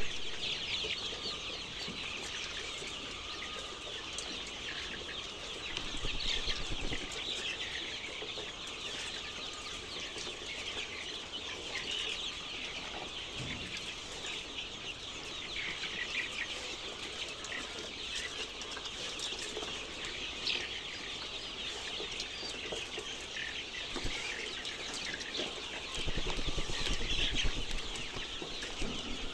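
A large flock of chickens clucking and calling over one another in continuous chatter. There is a low rumble about six seconds in and again near the end.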